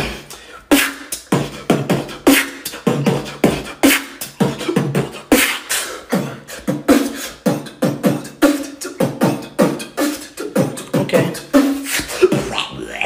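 Human beatboxing: a fast, steady run of mouth-made kick and snare hits with short low hummed notes between them.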